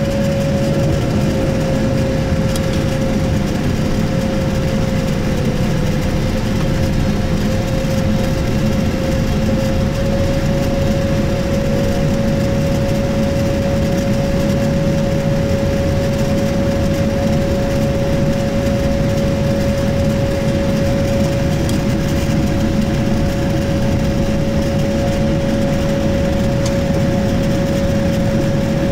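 Boeing 787-9 jet engine and airflow heard from a window seat in the cabin: a steady rumble with a constant high tone over it, held unchanged while the airliner descends toward landing.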